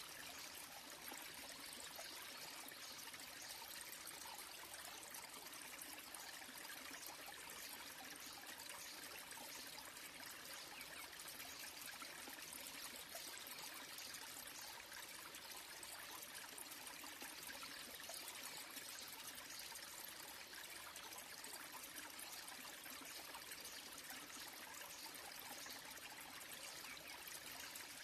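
Small waterfall trickling and splashing steadily over mossy rocks into a shallow pool, faint and unchanging.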